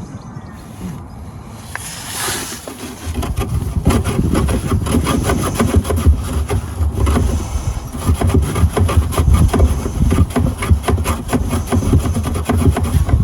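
Rusty steel brake pipe on a car underside being scraped and rubbed hard with a hand tool, a rapid run of rasping strokes starting about three seconds in, to test how deep the corrosion goes.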